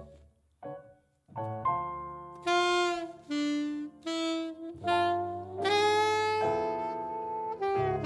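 Alto saxophone playing a slow jazz ballad melody over grand piano chords. A short near-silent pause in the first second, then the phrase resumes with several sustained notes and a long held note near the end.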